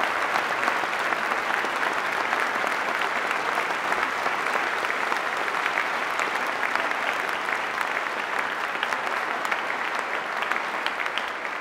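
A large concert audience applauding steadily.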